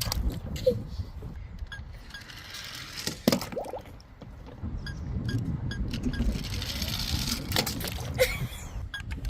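Toy vehicles rolling and clattering down a ramp, with a rumble and scattered clinks, and a sharp knock about three seconds in.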